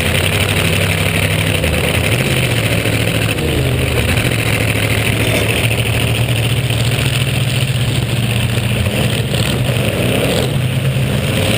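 Demolition derby car's engine running loud under a roof-mounted camera, its pitch dipping about two seconds in and then holding steady, over a constant rushing noise.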